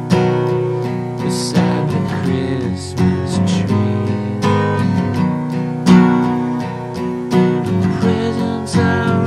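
Background music: acoustic guitar strummed and plucked in a steady rhythm.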